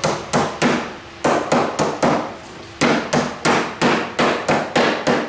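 Lid of a metal wood-stain can being hammered shut: a run of sharp strikes, about three a second, with two short pauses between runs.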